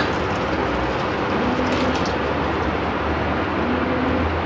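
Steady sizzling as thickened milk is poured from a steel pot onto hot, dry grated carrots in a wok.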